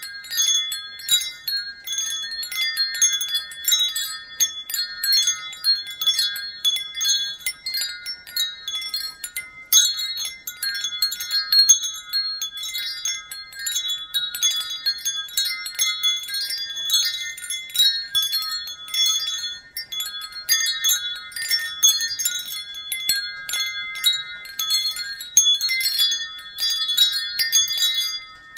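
Wind chimes ringing continuously, many high-pitched chime tones struck irregularly and overlapping.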